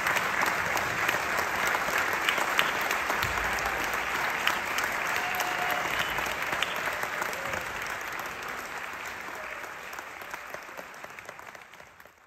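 Audience applauding, dying away over the last few seconds.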